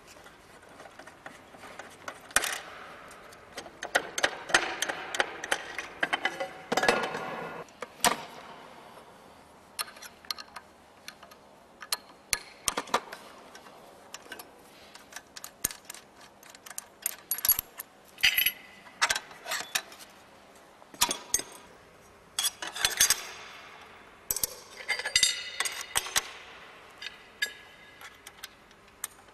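Irregular metal clicks, clinks and short scrapes of a clamp-on orbital pipe cutter being handled and adjusted, with a longer rattling stretch a few seconds in.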